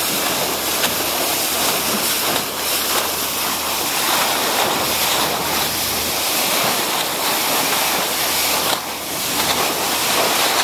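Rushing water and spray from a dive boat's bow wave while the boat is under way, with wind buffeting the microphone and a steady low engine hum beneath.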